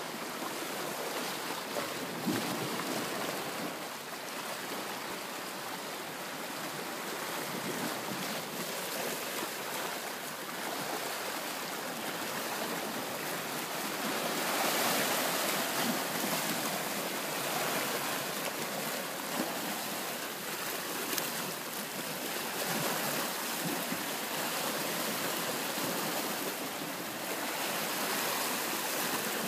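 Small waves of a calm sea lapping and washing against rocks and a sandy shore, a steady rushing wash that swells a little about halfway through.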